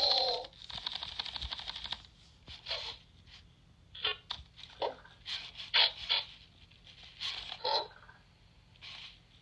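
Loona robot pet making a string of short electronic chirps and blips, opening with a brief bending call and a burst of rapid clicking.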